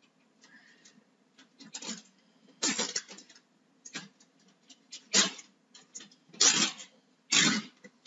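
A plastic zip tie being pulled tight through its ratchet head in several short zips, with light clicks and rustling between them.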